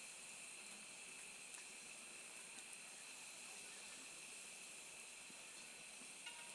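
Near silence: a faint steady hiss with thin, high steady tones and a few soft ticks.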